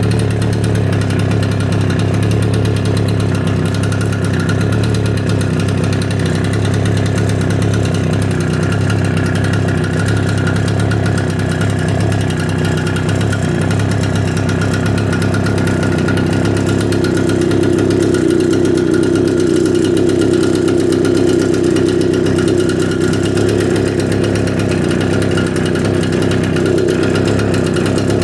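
Echo PB770H backpack blower's two-stroke engine running steadily, warm after a restart with no prime or choke. About halfway through, the engine note shifts and a higher tone grows stronger.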